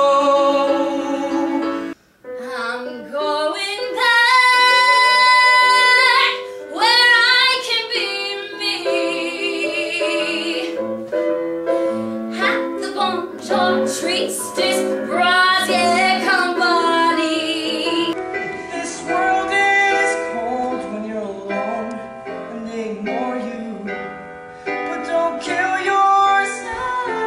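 Music: a woman singing a song over instrumental accompaniment. It cuts out abruptly for a moment about two seconds in, then carries on.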